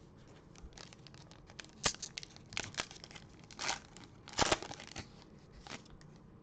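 Trading-card pack wrapper being torn open and crinkled: a string of short crackles and rips, the sharpest about two seconds and four and a half seconds in.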